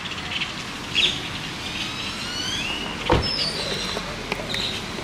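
Steady outdoor background noise with a few short, high chirping bird calls, and a single sharp knock about three seconds in.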